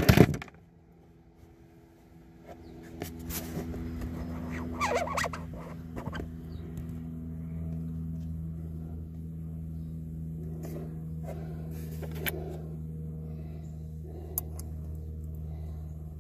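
A steady low mechanical hum fades in about three seconds in and holds. A few small clicks of fingers and tools on the battery terminals come over it, with a louder clatter right at the start.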